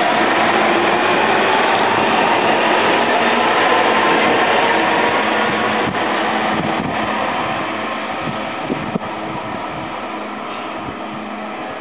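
SEPTA Silverliner V electric multiple-unit train running past and away down the line, its wheels and running noise slowly fading as it recedes. A whine climbs in pitch over the first few seconds as the train gathers speed.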